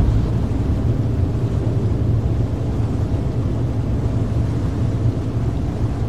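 Car driving at a steady speed: an even, low road and engine rumble with no distinct events.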